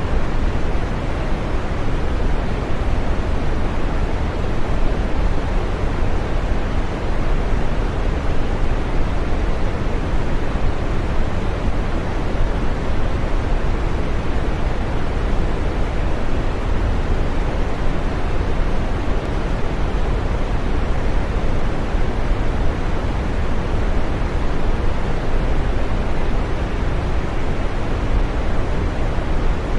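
Green noise: a steady, unchanging rushing hiss, weighted to the low and middle range and dull in the highs.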